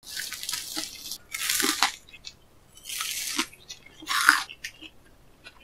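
Crispy panko-breaded pork cutlet (tonkatsu) crunching as it is cut with a knife and bitten into, in four short crunchy bursts, the loudest near the end.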